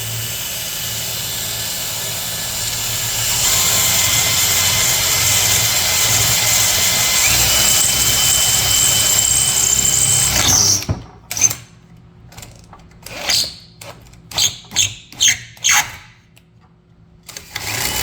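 Power drill running steadily, boring a hole through a ladder for a rivet, louder from about three seconds in as the bit bites, then stopping abruptly about eleven seconds in. A string of short, separate sounds follows, with steady noise again near the end.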